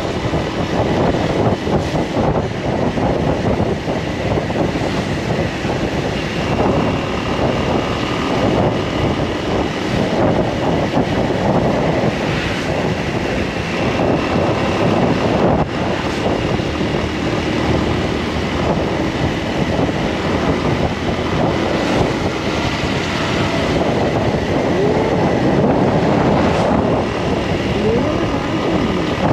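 A motor vehicle running steadily, with wind rushing over the microphone.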